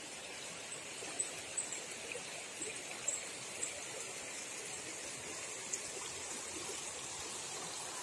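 Shallow, rocky stream flowing over stones, a steady rush of water, with a few short high chirps over it.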